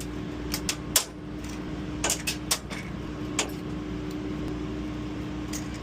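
Several sharp clicks and knocks from hands working loose the fasteners and parts of a humidifier, over a steady mechanical hum from air-handling equipment.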